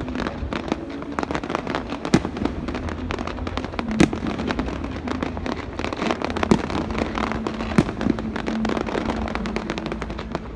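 Aerial fireworks going off: dense, rapid crackling throughout, with louder single bangs at about 2, 4, 6½ and 8 seconds in.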